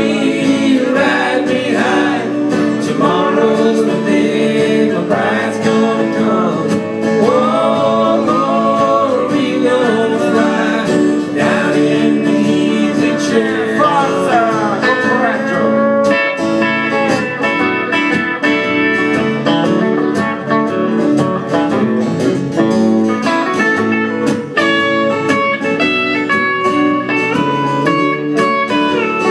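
Acoustic guitar, banjo and electric guitar playing a country-rock song live, with notes that glide in pitch through roughly the first half.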